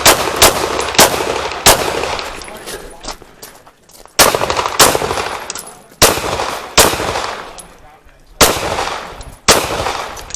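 Pistol shots on a practical-shooting stage, fired mostly in quick pairs with a pause of a second or two between groups, each shot followed by a ringing echo tail.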